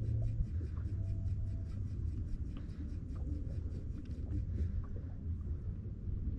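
Fishing reel being cranked to retrieve line, a rapid even ticking of about six or seven clicks a second that stops about two-thirds of the way through, over a steady low rumble of wind and water.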